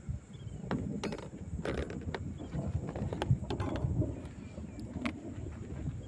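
Thunder: a low, uneven rumble with scattered sharp crackles.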